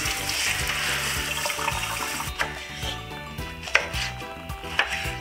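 Water spraying from a kitchen sink sprayer onto vegetables in a metal mesh colander, then a knife chopping tomatoes on a wooden cutting board in a few sharp, separate chops from about halfway in. Background music plays underneath.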